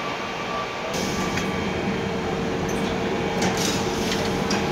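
Steady hum of running chair-testing machines, fuller from about a second in, with a few short hisses and clicks from the rigs' actuators.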